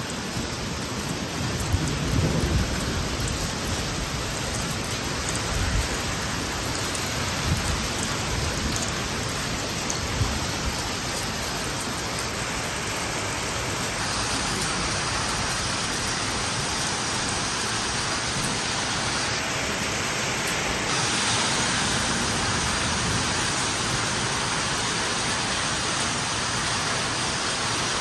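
Heavy rain pouring steadily on a wet street, with low rumbles of thunder in the first ten seconds or so.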